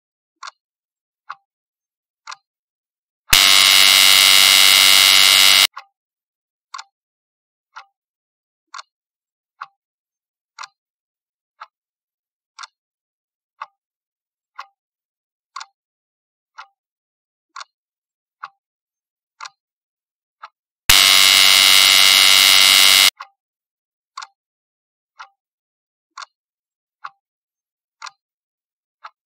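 Quiz countdown-timer sound effect: a clock ticking about once a second, cut in twice by a loud, steady buzzer lasting about two seconds each time the countdown runs out.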